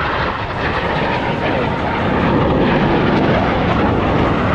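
Jet engines of Blue Angels F/A-18 Super Hornets making a loud, steady roar overhead, swelling a little about two seconds in.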